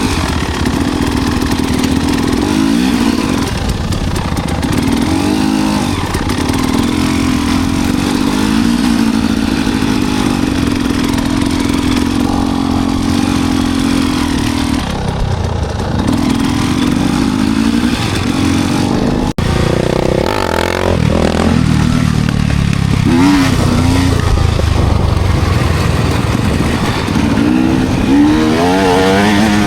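Enduro dirt bike engine running on a trail ride, its pitch rising and falling with the throttle, with a few quick revs in the last third. The sound cuts out for an instant about nineteen seconds in.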